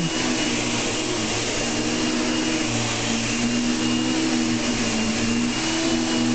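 Hoover Commercial Empower upright vacuum cleaner running steadily on carpet: a motor hum with a thin high whine over the rush of air.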